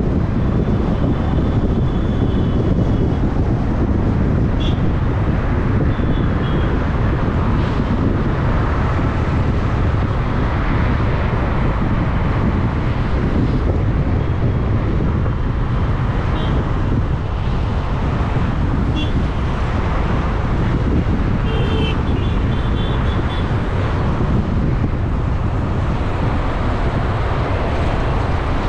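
Steady road noise of a car driving in moderate city traffic: a low, even rumble of engine and tyres with wind noise on the microphone. A few short, thin high tones come and go over it.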